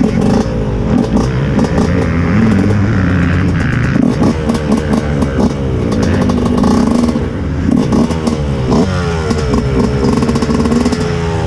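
Several motocross bike engines idling close by, with repeated throttle blips whose pitch rises and falls, most clearly in the second half.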